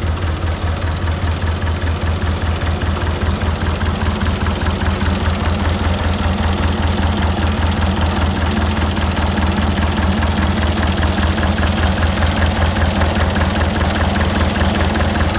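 Diesel engine of a 1964 Ruhrthaler HVE narrow-gauge locomotive running at low revs, with a steady, rapid low thudding beat, as the locomotive creeps up to couple.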